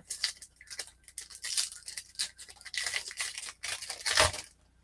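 Foil wrapper of a Topps Opening Day baseball card pack crinkling and tearing as it is ripped open by hand: a string of crackly rustles, loudest near the end.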